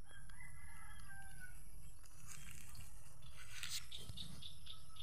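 A rooster crowing once, a drawn-out call lasting about a second and a half, followed near the end by a quick run of short, high chirps.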